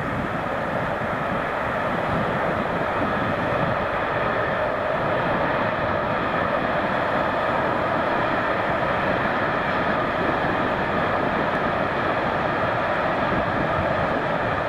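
Container freight train running across a high railway bridge, heard from afar as a steady rolling noise of wheels on rails that swells slightly as the train comes onto the bridge.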